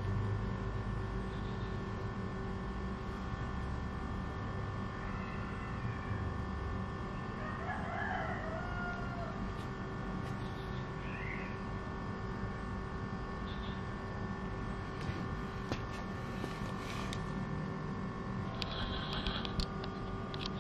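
Steady background hum with a few short, distant bird calls, about a third and halfway through.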